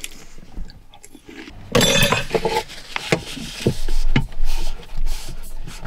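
Dishes and tableware handled on a wooden table while clearing up after a meal: a brief rustling scrape about two seconds in, then a series of light clinks and knocks.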